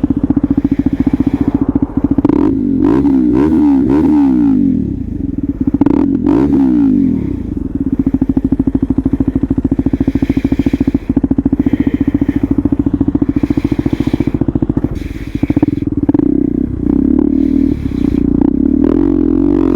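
KTM Duke 390's single-cylinder engine running loud, revved up and down several times in the first seven seconds and again near the end, holding a steadier note in between.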